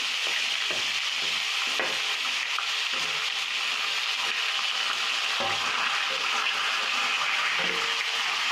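Hot oil frying steadily in a pan, a constant sizzle, as chopped onions are scraped in from a steel plate with a wooden spatula, with light scrapes and taps of the spatula.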